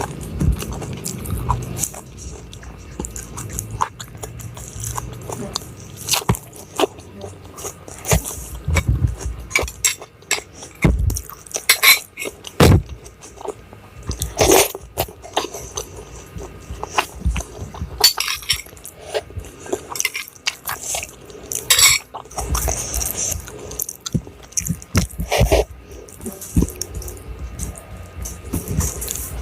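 Close-miked eating: chewing and crunching food in irregular bites, with a few clinks of dishes.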